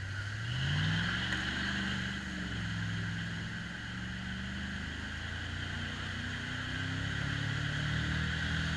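Jeep Wrangler's engine revving with its wheels spinning in deep mud, the pitch climbing about a second in, holding, then rising again near the end. A steady high hiss runs over it.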